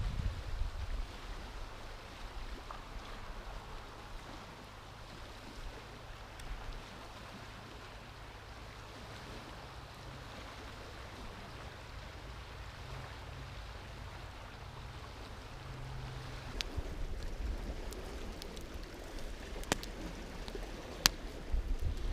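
Outdoor lakeside ambience: a low rumble under a steady wash of noise, with a faint low hum that stops about sixteen seconds in, then a few sharp clicks near the end.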